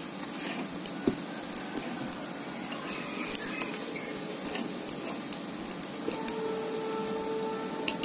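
Two strands of thin copper winding wire being wound by hand onto an electric blower motor's stator: irregular light clicks and scrapes of the wire against the stator. A faint steady hum comes in about six seconds in.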